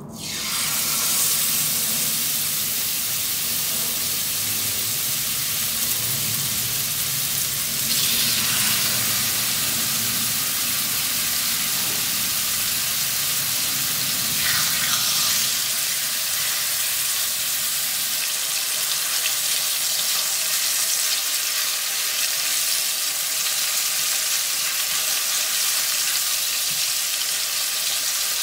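Spice-rubbed chicken breasts sizzling in hot olive oil in a frying pan. The sizzle starts suddenly as the first breast goes in, then flares up twice more, about eight and fourteen seconds in, as further breasts are laid in, and then settles into a steady frying hiss.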